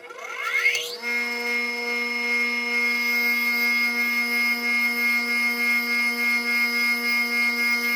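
Bench grinder fitted with a fine-grit diamond wheel being switched on: its motor whine rises quickly over about the first second, then settles into a steady running hum.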